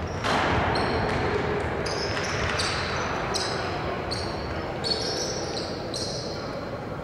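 Basketball game play on a hardwood court: sneakers squeak in repeated short, high-pitched chirps, about once or twice a second, and a basketball bounces.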